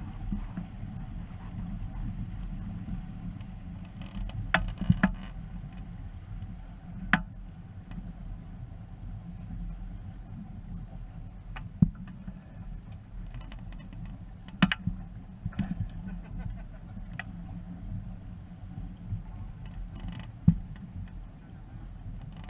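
Small sailboat under way: a steady low rumble of wind and water moving past the hull, with a few sharp knocks and clicks from the rigging and hull, the loudest about twelve and twenty seconds in.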